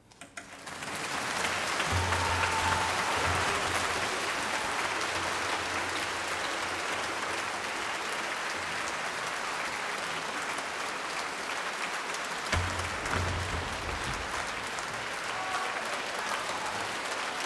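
Concert audience applauding, starting just as the last note dies away and swelling to full within about two seconds, then holding steady.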